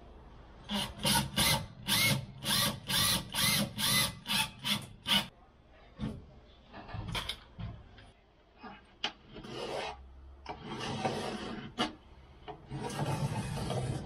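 Hand sanding on a fibreglass shelf: about a dozen quick, even back-and-forth rubbing strokes, roughly three a second, followed by irregular scraping and rubbing.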